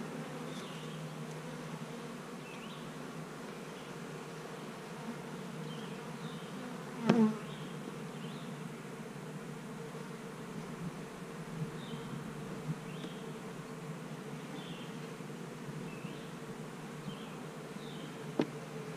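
Honeybees buzzing steadily around an open hive of a colony that has lost its queen. A single knock about seven seconds in and a sharper click near the end.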